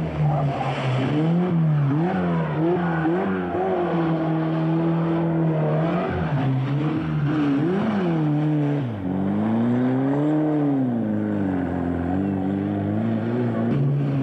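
Škoda rally car engines revving hard through a corner, one car after another, the pitch climbing and dropping repeatedly with throttle lifts and gear changes.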